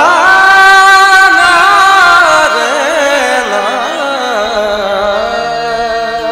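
Live ghazal music: a loud melodic line enters on a long held note with vibrato. About two and a half seconds in it breaks into wavering ornamental slides, then settles on a lower held note over the accompaniment.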